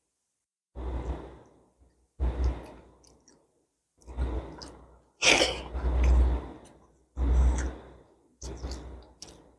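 Close-miked eating sounds: a person chewing and smacking mouthfuls of mutton bhuna and rice, in six separate bursts about a second long with dead silence between. The loudest burst, about five seconds in, is hissier, like a breath or slurp.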